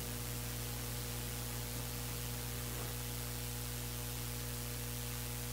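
Steady electrical hum with hiss from the sound system, with nothing else standing out.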